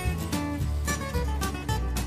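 Background music led by plucked acoustic guitar, with a steady beat.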